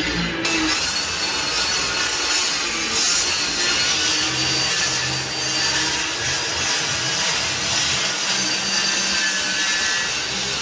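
Corded circular saw cutting through an OSB subfloor, running steadily under load, with the cut biting in harder about half a second in.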